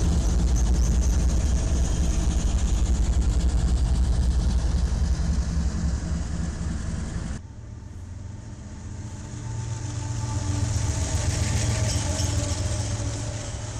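Diesel freight locomotives passing close by with a heavy, steady engine drone. About seven seconds in it cuts abruptly to another freight train's diesel locomotives going by, engine tones and wheel-on-rail hiss swelling and then easing off.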